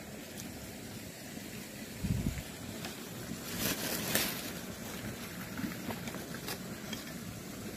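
Handling noise from a handheld camera: a dull knock about two seconds in and a scraping rustle around four seconds in, over a steady background hiss.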